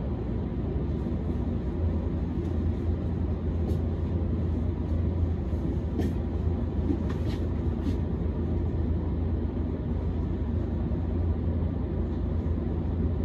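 Cabin noise inside a Hiroshima Electric Railway 1000-series Green Mover LEX low-floor tram: a steady low hum and rumble, with a few faint clicks.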